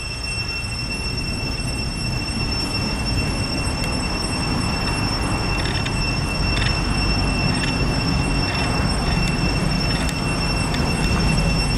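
Steady low rumble that grows slightly louder, with a thin steady high-pitched whine over it and a few faint ticks.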